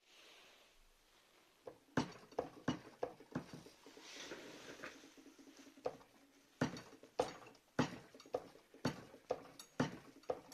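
Irregular metal clicks and knocks from parts of a sheet-metal machine being handled, roughly one or two a second, with a short scraping hiss about four seconds in.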